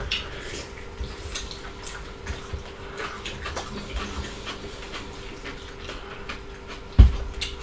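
Close-miked chewing and wet mouth sounds of people eating fried pork ribs and salad by hand, with many small smacks and clicks over a faint steady hum. A louder thump comes about seven seconds in.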